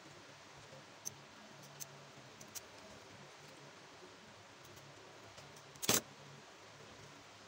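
Scissors trimming the edge of a black sandal sole piece, heard as a few sharp snips. About six seconds in comes a single louder short knock.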